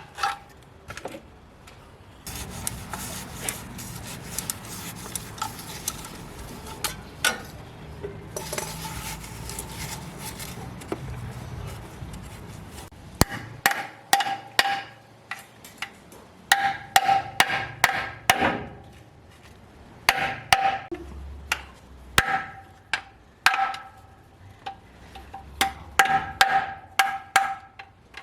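Flat screwdriver being worked and tapped in to break a car engine's sump (oil pan) free. First comes a stretch of scraping and rubbing. From about halfway, many sharp metal taps follow in quick clusters, each ringing briefly.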